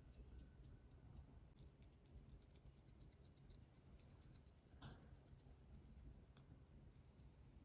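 Long false fingernails scratching through hair on a scalp: faint, quick, scratchy strokes, several a second, with one light click about five seconds in.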